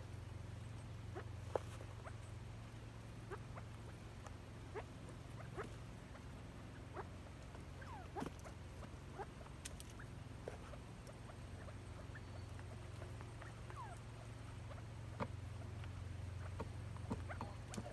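Quail and chukar partridges giving soft, short peeps and chirps, scattered irregularly a few a second, with an occasional light tick, over a steady low hum.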